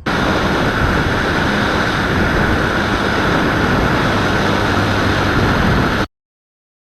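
R/C model airplane's motor and propeller in flight, a loud, steady drone mixed with rushing noise. It cuts off abruptly about six seconds in.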